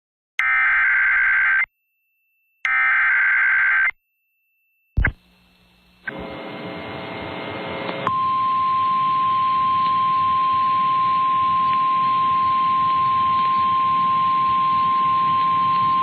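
Weather radio Emergency Alert System activation for a severe thunderstorm warning. It opens with the last two bursts of the SAME digital header, each a harsh buzzing data squawk of about a second. About five seconds in there is a click and radio hiss. From about eight seconds in, the single steady 1050 Hz weather radio alert tone sounds over the hiss.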